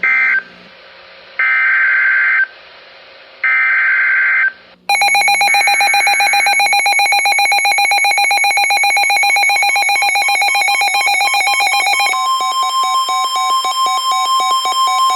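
Emergency Alert System broadcast: three bursts of the SAME digital header, each a warbling data tone about a second long with short pauses between them. About five seconds in, a loud continuous EAS two-tone attention signal with a fast beating pulse begins. About twelve seconds in it changes to a single steady alert tone, with the pulsing tone still broken up beneath it.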